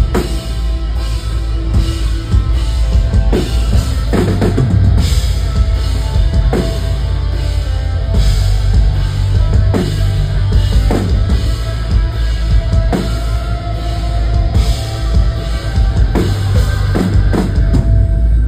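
Live post-hardcore band playing loud through a club PA: heavy drum hits with kick, snare and cymbals over a steady bed of electric guitars and bass.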